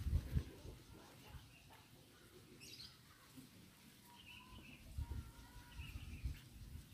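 Faint bird calls: a few short chirps and thin whistles, with low thuds near the start and again after about five seconds.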